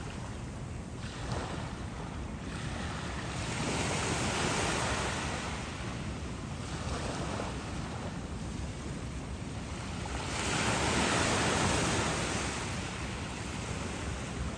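Small ocean waves washing in, as a steady hiss that swells twice into a longer, louder wash, a few seconds in and again past the middle. A steady low rumble of wind on the microphone runs underneath.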